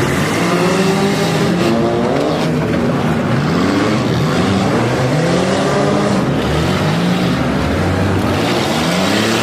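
Demolition derby car engines running hard, their pitch repeatedly rising and falling as the drivers rev up and back off, over steady loud mechanical noise.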